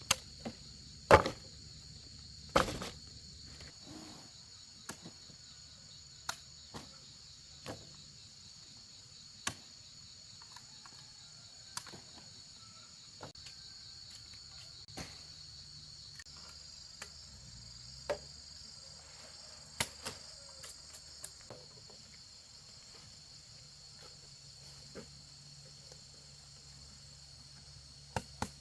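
Steady high-pitched insect chorus, with sharp knocks at irregular intervals over it. The two loudest knocks come in the first three seconds, and fainter ones follow every second or two.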